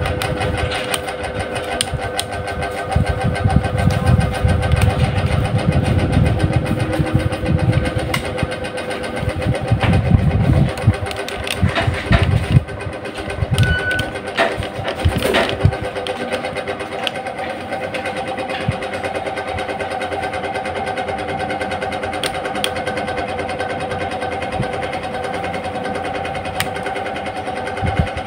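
Electric stand fan running: a steady motor hum with a loud, irregular low rattle and knocking over roughly the first half, steadier after that. This is the noise of a fan whose motor shaft has end play and slides back and forth.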